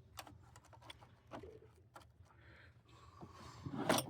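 Scattered light clicks and taps of pens and small tools being handled and set into a tool box, with a louder cluster of clicks near the end.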